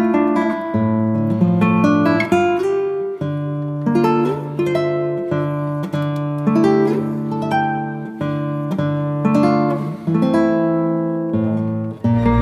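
Background music of plucked acoustic guitar, notes and chords changing about every second.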